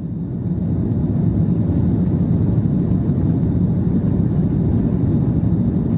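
Steady in-cabin noise of a jet airliner in flight: a dense low rumble of engines and airflow, with a faint steady high tone above it.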